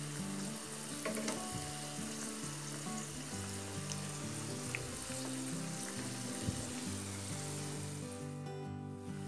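Onion bondas deep-frying in hot oil in a kadai: a steady sizzle and crackle of bubbling oil.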